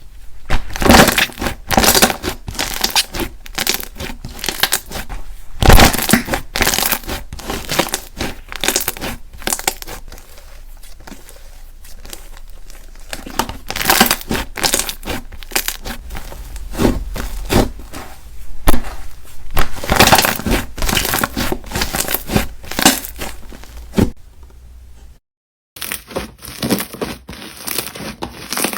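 Slime being squeezed, pressed and stretched by hand, giving dense, irregular crackling clicks and pops. The sound cuts out briefly near the end, then resumes with similar crackling.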